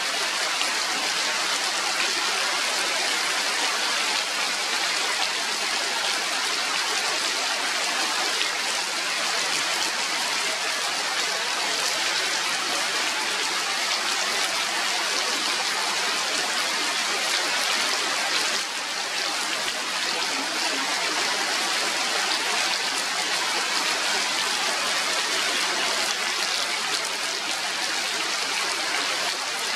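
Steady rain falling on forest trees and leaves: an even hiss of water, briefly softer for a moment about two-thirds of the way through.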